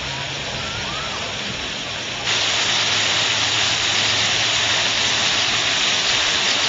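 Steady rush of splashing water, suddenly louder about two seconds in.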